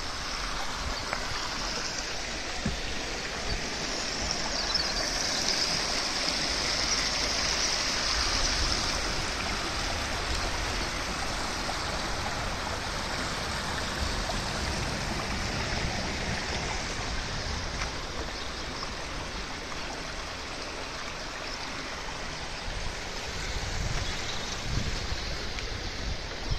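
Small shallow brook flowing and babbling over stones in a steady, continuous rush of water.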